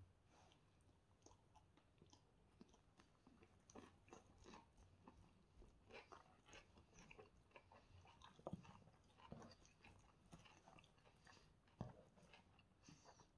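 Faint close-miked chewing and biting of chicken shawarma wrapped in pita with cucumber and onion: a steady run of soft crunches and small wet mouth clicks, with a sharper click shortly before the end.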